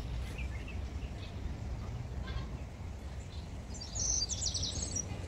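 Birds chirping, with a short burst of high chirps about four seconds in, over a steady low outdoor rumble.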